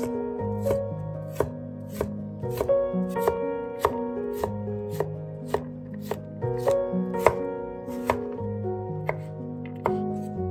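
Chef's knife dicing carrot sticks on an end-grain wooden cutting board: steady, evenly spaced cuts at about two a second, each stroke a sharp knock of the blade through the carrot onto the wood.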